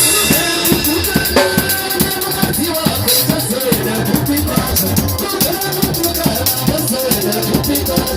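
Music with a fast, steady drum beat and a pitched melodic line that slides up and down.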